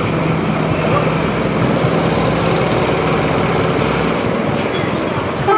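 The Silver Speed miniature diesel locomotive's engine running with a steady, rough rumble as the train approaches. Near the very end its horn begins to sound.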